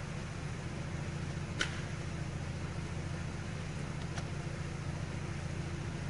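Steady low hum of a car interior, with one sharp click about a second and a half in.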